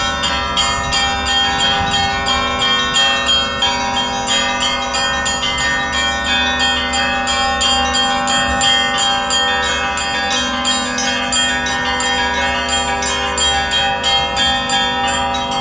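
Russian Orthodox church bells ringing a festive peal: small bells struck in quick succession over the steady ringing of the larger bells.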